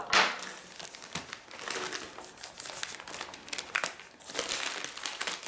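Packaging crinkling and rustling as a mail package is handled, in irregular bursts, the loudest crackle right at the start.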